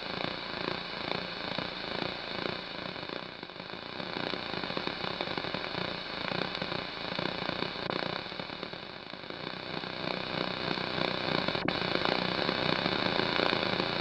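A steady crackling, hissing noise with no tune or voice in it, growing a little louder after about ten seconds.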